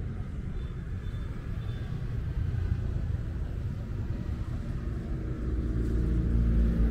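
Steady low rumble of passing road traffic. About five seconds in, a vehicle's engine hum comes in and grows louder as it draws near.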